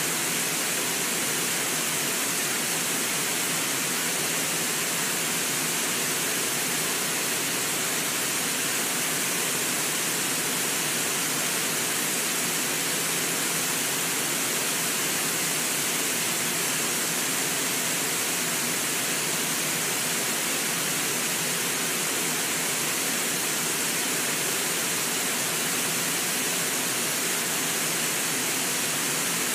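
A wide river waterfall rushing steadily, an even, unbroken sound of falling water.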